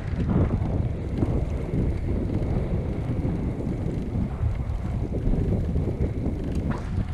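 Wind buffeting the microphone aboard a trolling boat, with the boat's motor and water running underneath as a steady line.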